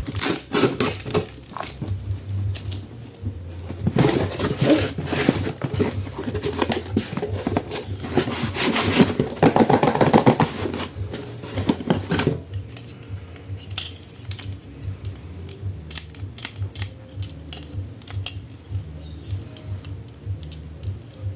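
Plastic toy packaging rustling and crinkling, with clicks from a plastic action figure being handled; about twelve seconds in the rustling stops and only scattered clicks remain.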